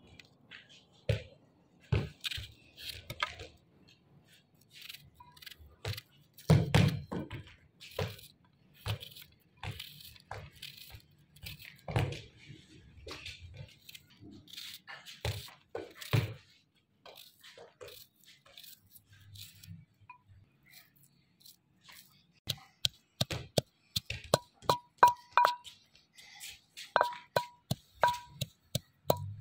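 A small kitchen knife cutting raw cucumber and onion held in the hand over a plate, giving irregular clicks and knocks as the blade goes through and pieces drop onto the plate. About 23 seconds in, light music comes in with a steady run of marimba-like notes.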